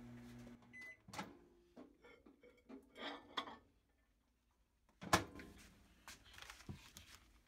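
Off-camera workbench sounds while plastisol is heated for pouring: a low hum cuts off about a second in and a brief beep follows. Then come scattered clicks and knocks, the loudest a single sharp knock about five seconds in.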